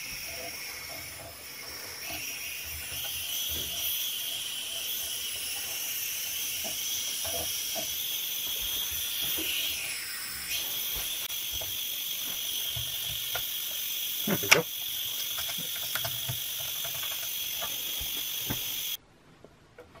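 Compressed air hissing steadily out of a leaking fitting at the pressure switch and regulator of a 1.5 hp Eagle air compressor. The hiss dips briefly about halfway, there is a single knock about two-thirds of the way through, and the hiss stops suddenly near the end.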